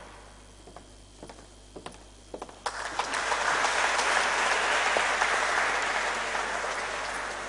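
Audience applauding in a hall: a few scattered claps at first, then about two and a half seconds in the applause swells, holds, and slowly dies down near the end.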